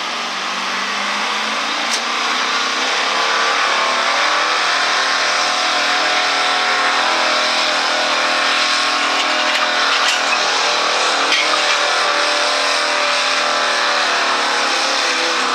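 A stock gasoline engine in a square-body Chevrolet 4x4 pickup, run hard at high revs under full load as the truck drags a pulling sled. It gets a little louder about two seconds in and then holds steady.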